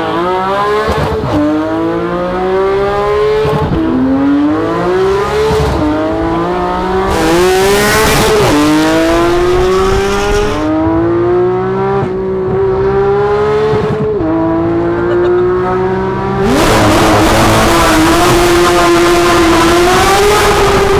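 Porsche 991.1 GT3 RS flat-six with a full Sharkwerks exhaust over stock headers and cats, accelerating hard. The pitch climbs and drops sharply at each quick upshift, several times over, then holds steady at high revs near the end.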